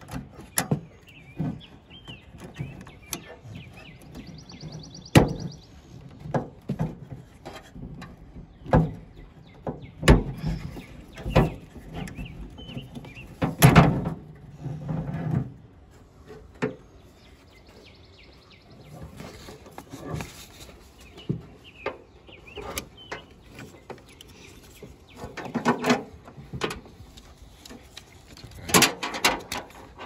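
Irregular clicks, knocks and rattles of a Ford Transit's plastic rear door handle and metal door lock assembly being unclipped and worked out of the door by hand, with a few sharper knocks standing out. Birds chirp faintly in the background.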